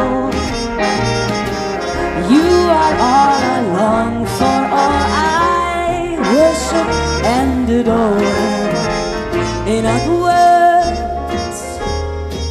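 Live big band playing a jazz number, the brass section prominent, with notes scooping and sliding in pitch over a steady bass and drum beat.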